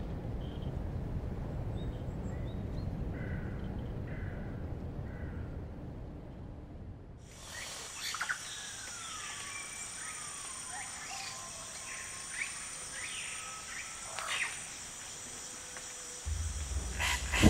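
A low steady rumble with a few faint chirps. About seven seconds in, it changes to a jungle ambience: a steady high insect drone with birds calling over it, their calls gliding in pitch. A deep rumble comes in near the end.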